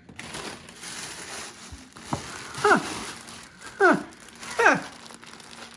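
Tissue paper and a plastic bag rustling as a gift box is unpacked, with three short vocal cries, each falling steeply in pitch, in the second half.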